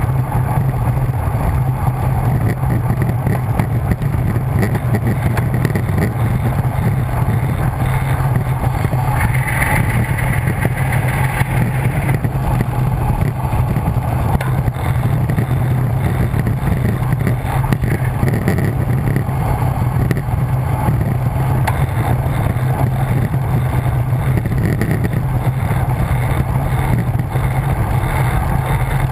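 Steady wind rush and low rumble over a camera microphone on a road bike descending fast.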